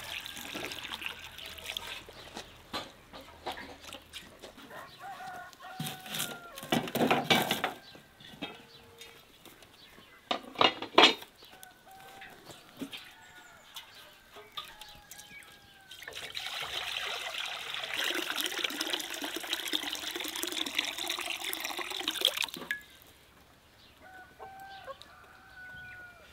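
Water trickling onto peeled potatoes in an enamel bowl, then hens clucking on and off with two loud bursts of noise between. About sixteen seconds in, water is poured steadily from a metal jug into a wok over a wood fire for six or seven seconds, and the hens cluck again near the end.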